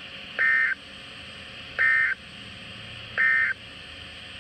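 Emergency Alert System end-of-message signal: three short bursts of SAME digital data, a two-tone warble, each about a third of a second long and about 1.4 seconds apart. The bursts sound over a steady background hiss and mark the end of the alert.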